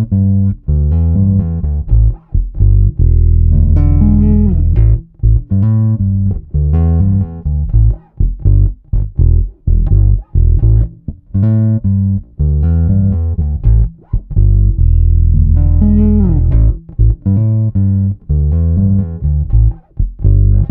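Solo electric bass: a Modern Vintage MVJ4-66, a copy of the 1966 Fender Jazz Bass, played fingerstyle on the neck pickup with the tone control rolled down, giving a warm, deep sound. It plays a riff of short, clipped notes broken by a few held notes with a falling slide, and the phrase comes round again partway through.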